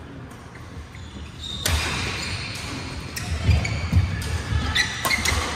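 Badminton rally: several sharp cracks of rackets striking a shuttlecock, about a second apart, mixed with thuds of footfalls and short squeaks of court shoes on the sports floor.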